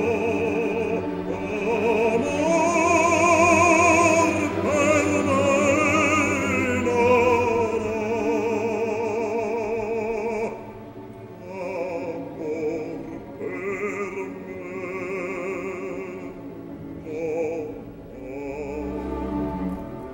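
Operatic bass voice singing with wide vibrato, accompanied by orchestra. The first half is a loud, sustained phrase; after about ten seconds the singing turns softer, in shorter phrases.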